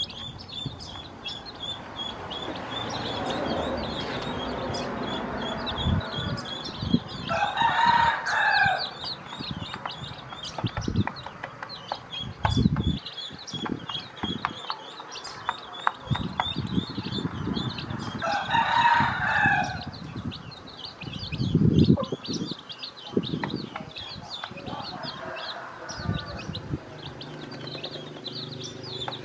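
Newly hatched chicks peeping continuously in short high chirps while a rooster crows twice, about seven and eighteen seconds in. Scattered low thumps and taps come from the hen pecking at feed on a plastic plate in a metal basin.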